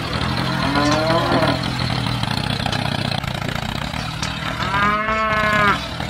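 Two drawn-out cattle moos, a shorter one about a second in and a longer, louder one near the end, over a steady low engine hum.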